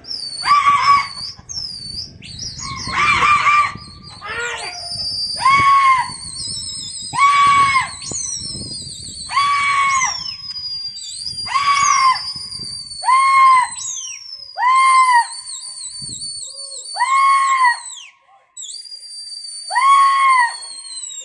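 A man calling out in loud, drawn-out hoots, about ten in a row, one every second and a half or two. Shrill whistles glide and waver above them.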